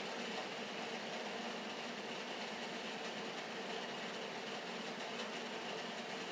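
LEGO Technic drivetrain running under power, the plastic gears, disk clutch, cardan shaft and differential whirring steadily as they drive the wheels round with the clutch engaged.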